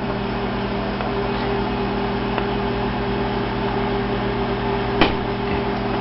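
Steady electrical hum with a fan-like whir from running ham radio power supply and amplifier equipment, with a single short click about five seconds in.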